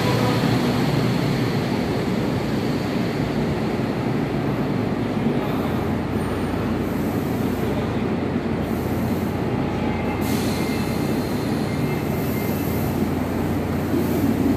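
Sendai Subway Namboku Line train running alongside the platform with steady rolling noise. About five seconds in, a train stands at the platform and a steady low hum carries on.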